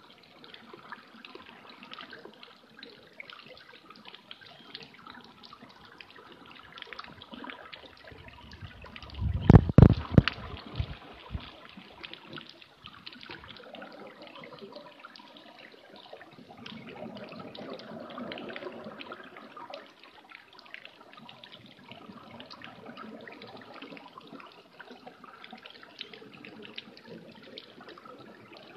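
Underwater ambience picked up by a submerged camera: a steady crackle of fine clicks, with one loud low burst about ten seconds in and a softer swell of noise around eighteen seconds.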